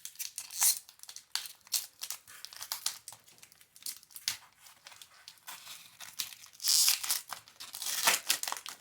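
Foil wrapper of a Pokémon booster pack being crinkled and torn open, with dense crackling throughout and louder ripping tears about a second in and again near the seven-second mark.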